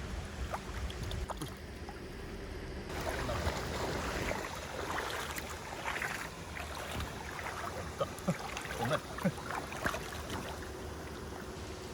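River water sloshing and splashing, with a run of short splashes and knocks between about four and ten seconds in.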